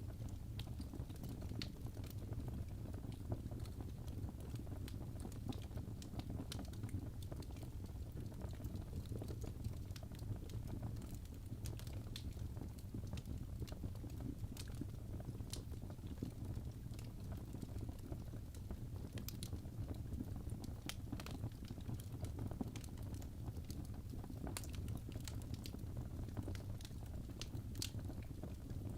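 Wood fire burning in a fireplace: a steady low rumble of the flames with scattered sharp crackles and pops throughout.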